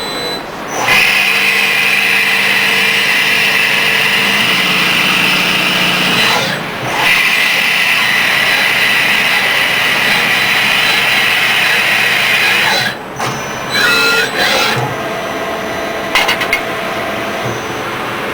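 SuperRevo CNC engraving machine running and cutting: a steady, high-pitched machining noise. It dips briefly about six seconds in and again around thirteen seconds, with a short wavering whine just after the second dip.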